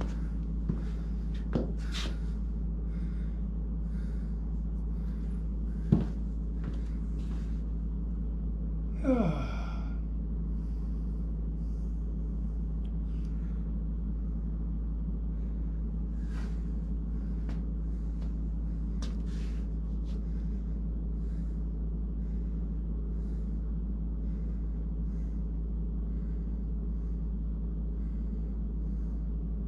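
A steady low hum with a few scattered knocks; the sharpest comes about six seconds in. Just after nine seconds there is a short squeak that falls steeply in pitch.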